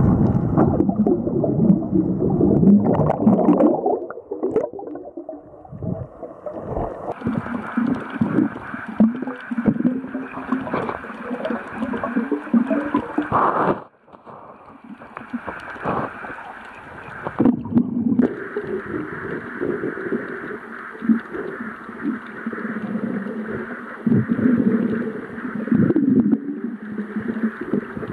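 Uneven underwater sloshing and gurgling of water around a submerged camera while snorkelling. It breaks off abruptly about halfway through, where the shot changes, then resumes.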